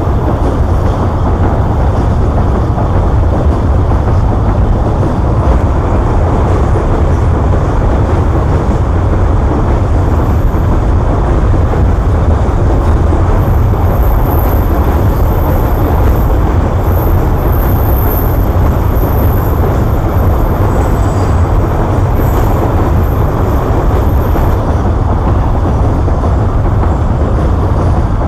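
Long Babaranjang coal train of open wagons rolling past at close range: a loud, steady rumble of wheels on rail. A thin high whine runs through the middle.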